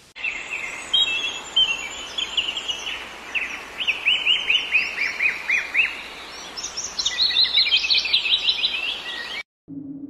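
A chorus of songbirds chirping and calling together: a dense stream of quick, high, downward-sweeping notes over a soft background hiss. It starts suddenly just after the beginning and cuts off abruptly near the end.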